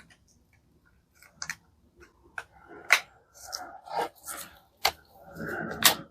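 Sanding pad being fitted onto a cordless oscillating multitool by hand: a string of irregular plastic and metal clicks and short scratchy rustles, with the motor off.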